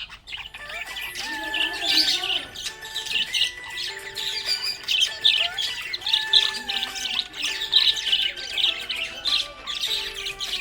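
Budgerigars chirping in a quick, continuous stream, with background music playing underneath.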